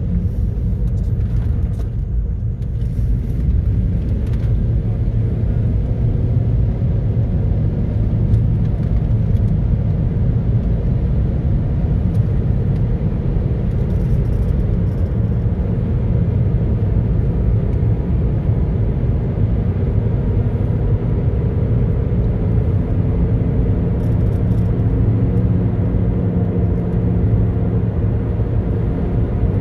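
Steady low rumble of a moving car heard from inside its cabin: tyre and engine noise while driving along a highway.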